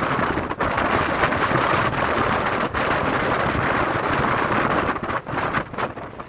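Sea waves washing in, a continuous rushing surf mixed with wind buffeting the microphone, which falters in a few brief dips near the end.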